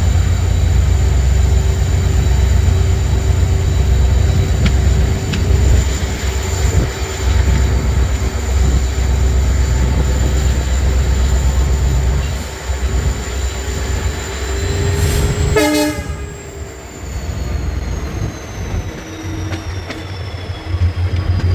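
WDP4 diesel locomotive's EMD 16-cylinder two-stroke engine running under load, heard from the coach just behind it: a heavy low rumble with a steady high whine, wheels on rail underneath. A short horn blast comes about 15 seconds in; before it the rumble eases, and after it the whine slowly falls in pitch.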